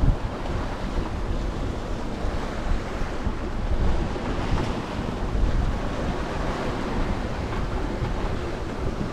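Strong wind buffeting the microphone over the rush of sea and waves along a sailing yacht's hull, steady with occasional louder gusts.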